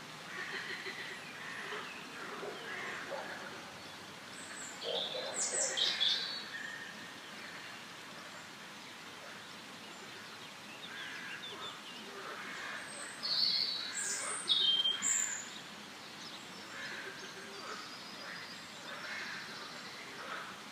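Forest ambience: birds calling in short, high chirps, loudest in a cluster about five seconds in and another about two-thirds of the way through, over a steady soft background hiss with fainter calls in between.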